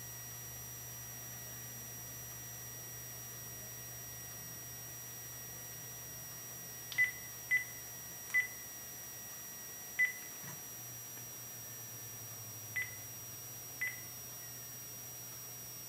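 Cordless house-phone handset keypad beeping as its buttons are pressed to set up a redial: six short, single-pitch beeps at uneven intervals, starting about seven seconds in.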